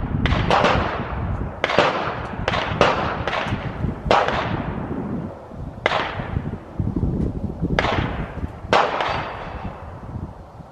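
Gunshots on a shooting range: about ten sharp reports at uneven intervals, each trailing off in a long echo.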